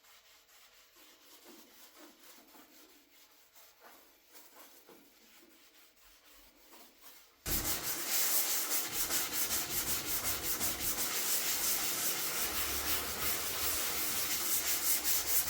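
Sanding of cured body filler on a car body panel. It is faint at first, then starts loud and abruptly about halfway through and keeps going as a steady, dense hiss with a fine, fast grain.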